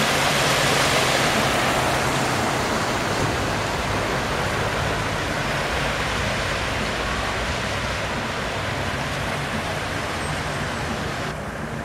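Steady rushing and splashing of cars driving through deep floodwater on a flooded road. It is loudest at the start as an SUV ploughs through the water close by, then eases off gradually.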